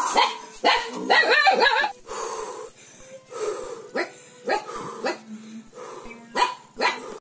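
A dog barking repeatedly, in short sharp barks.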